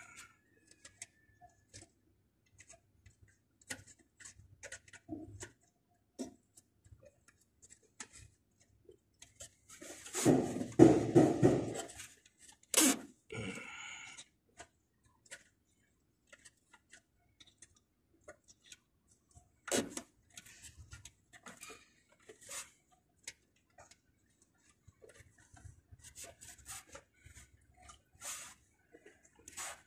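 Handling noise from a gloved hand working among the wires and terminals inside an air-conditioning unit's metal control panel: scattered small clicks and ticks, with a louder rustling burst about ten seconds in and sharp clicks a little later and near the twenty-second mark.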